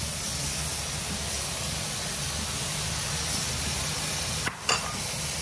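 Vegetables sizzling with a steady hiss in a hot wok, with one short knock near the end.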